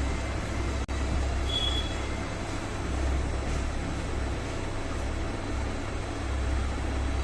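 Steady low rumble of background noise, with a short high beep about a second and a half in.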